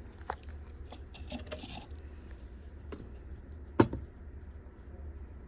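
Light taps and clicks of small toy props being handled, with one sharp knock about four seconds in.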